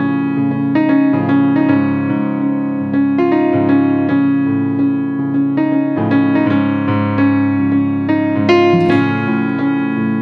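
Background music played on a piano-like keyboard, a steady run of notes and chords.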